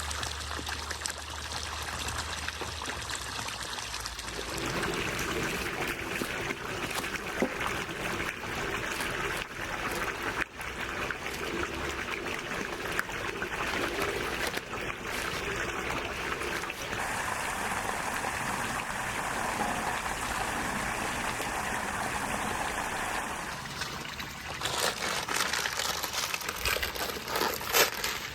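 Water trickling and running steadily, its sound shifting a few times along the way. Near the end a run of sharp clicks and crackles comes in.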